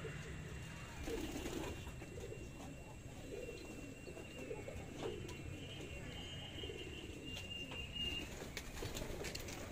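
Domestic pigeons cooing faintly, a run of short low coos repeating every half second or so.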